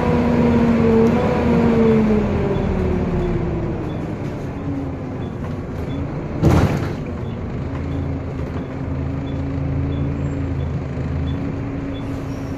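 Volvo B7TL double-decker bus heard from the upper deck: its driveline whine falls in pitch as the bus slows. About six and a half seconds in there is a short hiss of compressed air from the brakes, and then a steady low running drone.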